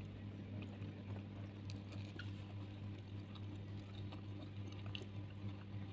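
Eating by hand: faint soft squishes and small ticks of fingers mixing steamed rice with anchovy sambal on a plate, and quiet chewing, over a steady low hum.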